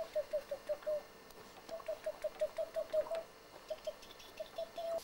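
A baby's quick run of short, same-pitched squeaky vocal sounds, about eight a second, in three spurts, with faint light taps alongside.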